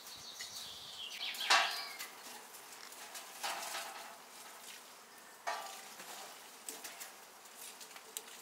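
Metal barbecue tongs knocking and scraping against burning logs in a steel charcoal grill, a few separate clatters a second or two apart, the loudest about one and a half seconds in.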